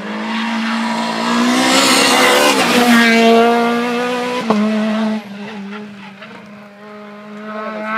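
Rally car engine at high revs as the car passes at speed on a tarmac stage, loudest in the first three seconds, then fading as it drives away. A single sharp crack about four and a half seconds in.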